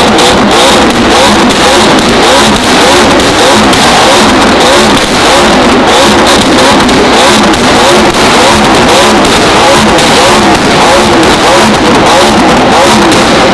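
McLaren sports car on a straight-piped, top-mount FI exhaust being revved again and again, well over a dozen short rising revs in a row, with sharp crackling pops from the exhaust throughout.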